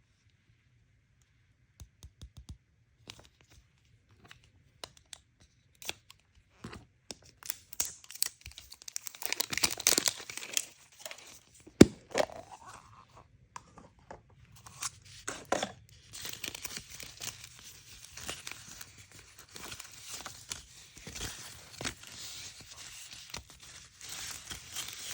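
Toy packaging being opened by hand: a few light clicks, then a long tearing stretch, a sharp snap, and steady crinkling of the wrapper.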